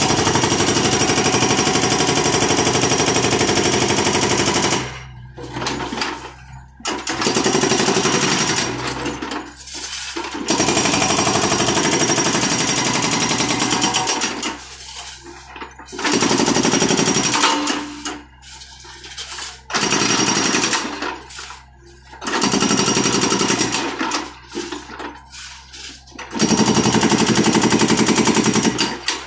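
Hydraulic breaker on a John Deere 50D mini excavator hammering concrete in about seven bursts of rapid blows, each a few seconds long. Between bursts the excavator's engine runs on with a low steady drone.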